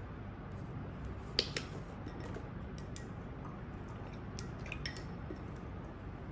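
Magenta paint being squeezed from a small plastic paint tube onto a palette: a few sharp clicks and soft squishes from the tube and its cap, the loudest about a second and a half in and another pair near five seconds, over a low steady hum.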